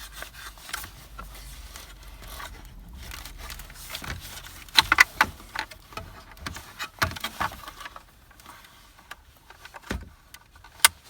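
Irregular plastic clicks, scrapes and rattles of dash wiring connectors being unlatched and unplugged behind a pickup's plastic dash trim cover. There are a few sharper clicks about halfway through and near the end.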